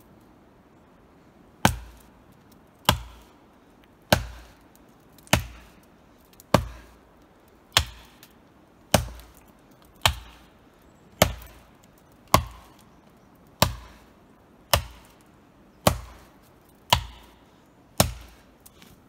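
Hatchet chopping into a thin standing tree trunk near its base: about fifteen sharp, evenly paced blows, roughly one a second, starting a second or two in.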